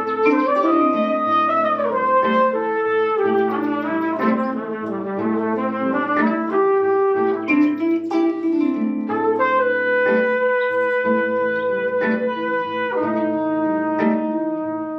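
Trumpet playing a melody of changing and bending notes, settling into longer held notes, over the plucked strings of a kora.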